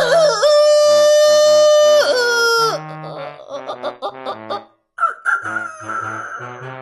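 Human vocal mimicry of a rooster crowing: one long crow that wavers at first, holds a steady pitch for about two seconds, then drops away. Background music plays underneath, and a quieter sound follows about five seconds in.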